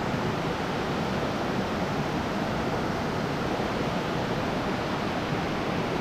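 Steady, even rushing of a nearby waterfall.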